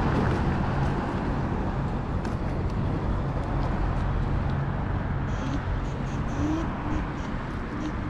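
Steady road and traffic noise heard from an electric scooter being ridden among cars, with a low engine-like hum throughout and a faint rising whine in the second half.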